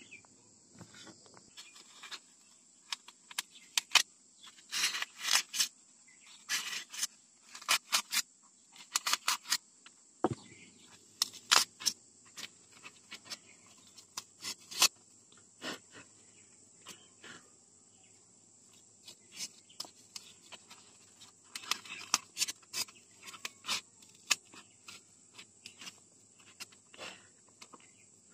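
Polystyrene foam block being handled, scraped and broken apart by hand: irregular bursts of squeaky crackling and sharp snaps, heaviest in two stretches, over a faint steady high-pitched tone.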